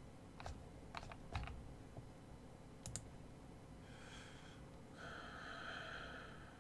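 A few scattered computer keyboard clicks, then a faint hissing sound for the last second and a half or so.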